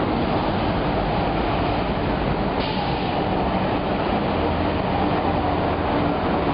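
A fire engine's diesel engine running, a steady loud rumble with a hiss over it.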